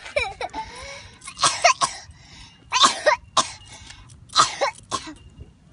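A young boy coughing: several short, throaty coughs about a second apart.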